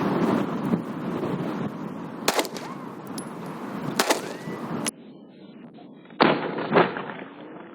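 Four 9mm pistol shots. The first two come about two and four seconds in, over wind noise. After a sudden cut, two more follow in quick succession, about half a second apart.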